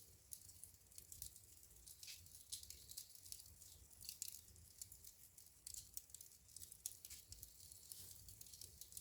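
Wood burning in a fireplace: faint, irregular crackles and small pops over a soft low rumble.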